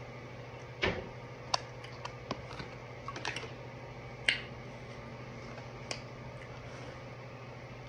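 Eating and handling noises: a black plastic fork clicking and tapping, and the glass dish of chicken being worked, about a dozen scattered sharp clicks over a steady low hum.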